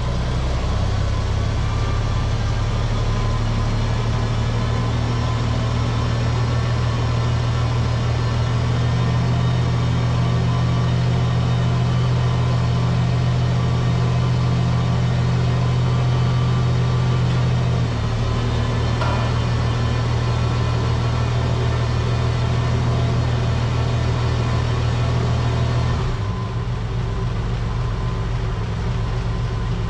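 Oliver 880 tractor's six-cylinder gasoline engine running steadily just after start-up, freshly tuned with new plugs, wires, points, condenser, rotor and cap. It eases down a little about eighteen seconds in and again near twenty-six seconds.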